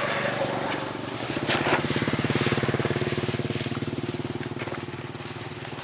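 Small engine running steadily with a fast, even pulse, with rustling and crunching over it.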